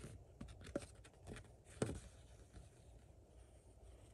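Faint rustling of a folded paper instruction manual being handled, with a few soft crackles over quiet room tone.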